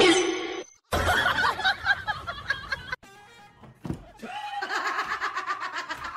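Music with a snickering laugh added over it, the laugh running as a quick string of short pulses in the second half.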